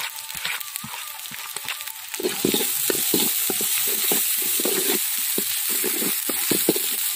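Onion and spice masala sizzling as it fries in oil in a metal wok. About two seconds in, a metal ladle starts stirring and scraping it round the pan, with many quick irregular strokes over the sizzle, louder than before.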